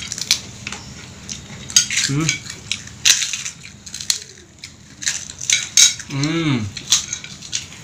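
Spoons and plates clinking in many short, irregular knocks as food is served and eaten at a shared meal. A brief voice sound breaks in a little after six seconds.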